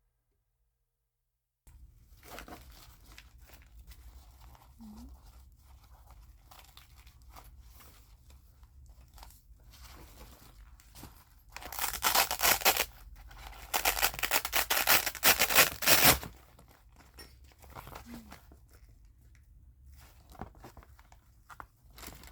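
A blood-pressure kit being unpacked by hand: faint rustling and handling, then two loud ripping sounds about halfway through, the first about a second long and the second about two and a half seconds.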